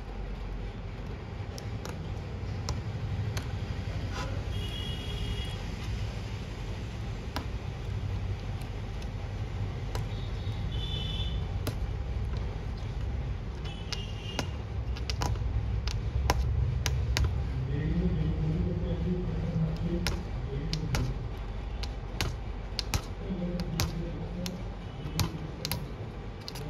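A small metal hobby-knife blade scraping and picking at a laptop motherboard, giving many small sharp clicks and scratches at an uneven pace, as charred board material is scraped away around a 19 V track that has shorted to the ground layer. A steady low rumble runs underneath.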